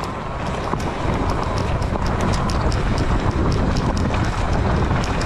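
Heavy wind rumble buffeting a GoPro's microphone, with irregular sharp clicks and rattles throughout.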